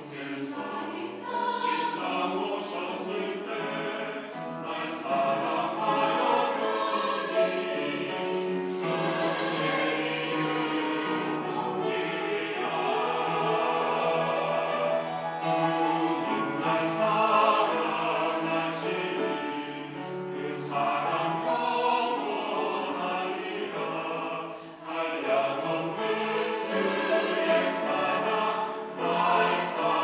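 Mixed church choir of women's and men's voices singing a sacred anthem together, in sustained phrases with brief breaks between them.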